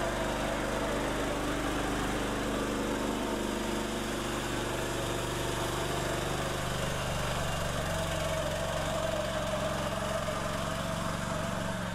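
Single-cylinder 420cc Predator engine of a homemade articulating 4x4 mini truck running steadily under load as the machine climbs a steep, muddy hill. Its note shifts slightly about seven seconds in.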